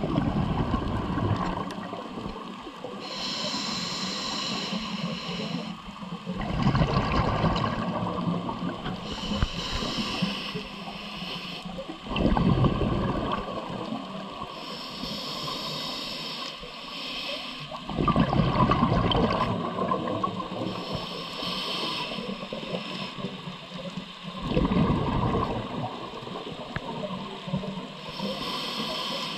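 Scuba diver breathing through a regulator, heard underwater: a hissing inhale, then a louder, rumbling burst of exhaled bubbles, repeating about every six seconds.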